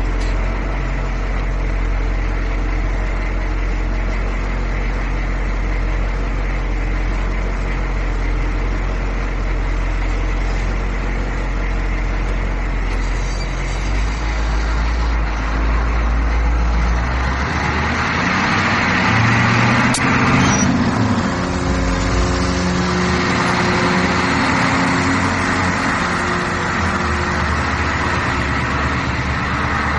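Bus engine running with a steady low hum. About halfway through the sound changes: the low hum drops away and a louder rushing noise with shifting engine tones takes over, as the bus gets under way, with a brief click about two-thirds of the way in.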